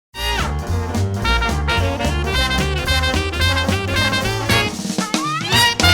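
Upbeat swing-style music with brass and a drum kit, with a quick rising slide about five seconds in.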